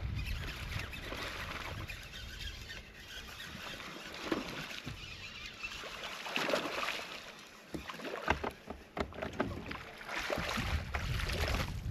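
A hooked bass splashing and thrashing at the surface through matted grass as it is reeled toward the boat, in several bursts, with wind buffeting the microphone near the start and end.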